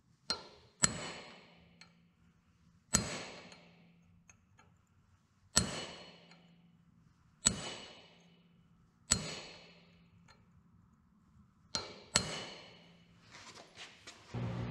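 Hand hammer striking a chisel held on a cold mild-steel bar on the anvil, scoring the line where the piece will be cut off: eight sharp, ringing metal strikes, unevenly spaced a second or two apart. Near the end the gas forge's burner comes in with a steady rushing hum.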